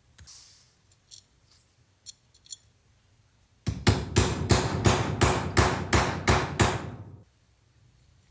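A few light clicks of handling, then a run of about ten quick, regular strokes, roughly three a second, lasting some three seconds.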